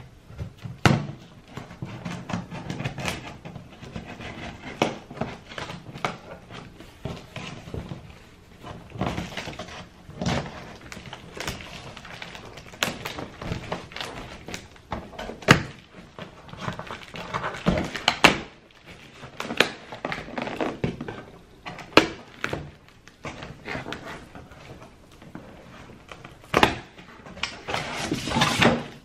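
Cardboard box and plastic packaging being handled while items are unpacked: irregular knocks and thunks with bursts of rustling in between.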